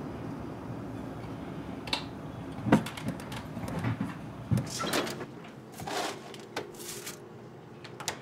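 Small sounds of a person at a desk: several sharp knocks and clicks of objects being handled and a chair shifting as he gets up, with a few brief rustling scrapes near the end, over a low steady room hum.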